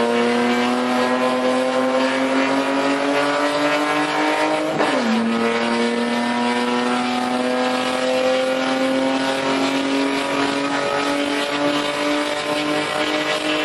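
BMW E30 race car's inline-six engine at full throttle, heard from inside the cabin, its pitch climbing slowly as the car pulls through a gear. About five seconds in the revs drop sharply on an upshift, then climb steadily again in the next gear.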